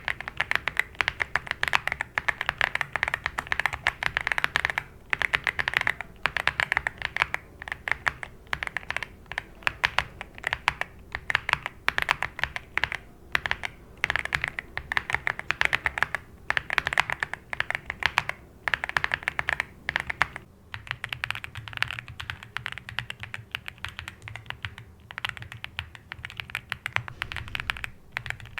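Mechanical keyboard with Cupid switches being typed on fast, in runs of rapid key clacks broken by short pauses. About two-thirds of the way through, the keystrokes turn duller, with more low end.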